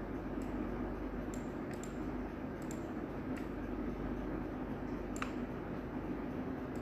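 Computer mouse clicking a handful of times at irregular intervals while arrow shapes are placed, over a steady low hum and hiss of room noise.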